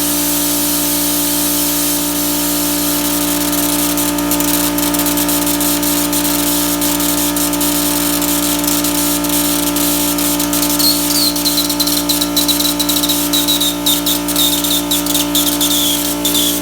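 Homemade CNC plasma cutter cutting sheet metal: a steady machine hum under a hiss, with sharp crackles from about four seconds in. A high, wavering tone that slowly falls joins in about two-thirds of the way through.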